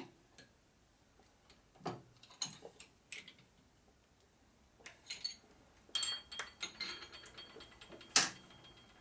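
Scattered metallic clicks and clinks of a hand wrench working the adjusting screws of a lathe tailstock, loosening one side and tightening the other to shift it sideways. The clinks bunch together about six seconds in, and a sharp ringing clink near the end is the loudest.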